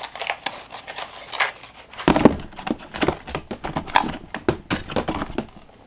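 Plastic packaging rustling and clicking as small items are handled, with a louder knock about two seconds in.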